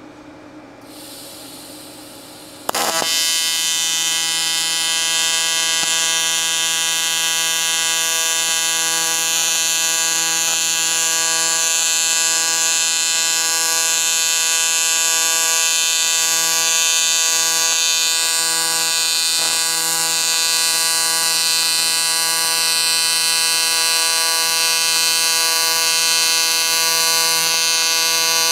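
AC TIG welding arc on aluminium: a loud, steady electric buzz that starts abruptly a few seconds in and holds evenly while a 6061 aluminium bung is welded into a cast aluminium intercooler.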